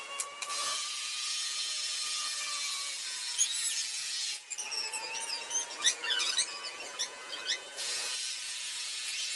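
Dyson V10 cordless vacuum cleaner running with a steady high-pitched hiss. It drops away for about three seconds in the middle, where short squeaks are heard, then comes back.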